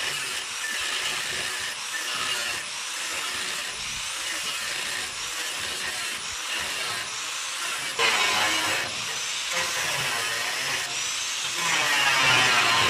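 Electric jigsaw cutting through the steel lid of a metal drum: a continuous sawing noise that gets louder about eight seconds in.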